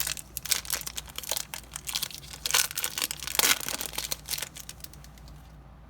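Wrapper of a Topps Chrome baseball card pack being torn open and crinkled by hand, a dense run of crackles that stops near the end.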